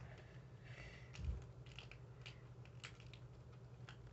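Faint handling of a rolled paper tube: soft rustles and small crinkling clicks, with a soft thump about a second in.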